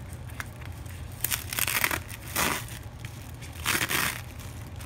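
Thin plastic wrapper of an individually wrapped Always Radiant pad crinkling and tearing as it is unwrapped by hand, in a few short bursts, the loudest about a second and a half in and again near four seconds.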